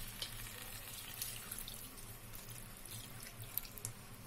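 Water being poured into a hot kadai of browned chicken masala: a steady wash of pouring water with scattered small crackles from the hot pan.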